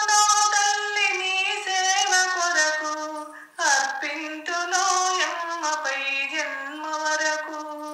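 A woman singing a Telugu devotional song without accompaniment, her voice moving in held, sliding notes. She pauses briefly for breath about halfway through, then carries on.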